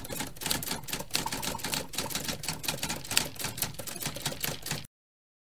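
Typewriter sound effect with rapid, irregular key clacks as on-screen text is typed out. It cuts off abruptly shortly before the end.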